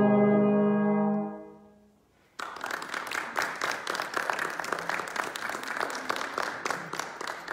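Brass quartet of trumpet, trombone and two euphoniums holding a final chord that cuts off about a second in and rings away. After a short silence, applause breaks out and carries on.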